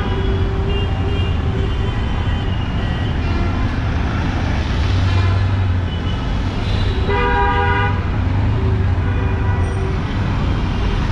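Busy street traffic, with engines running steadily and vehicle horns honking: a short honk at the start and a louder one lasting about a second around seven seconds in.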